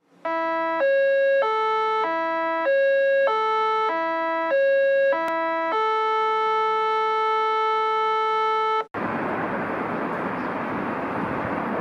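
A short electronic intro jingle: a run of about nine plain synthesized notes, stepping up and down in pitch roughly every half-second, then one long held note of about three seconds that cuts off abruptly. After the cut comes steady outdoor wind noise at the rail yard.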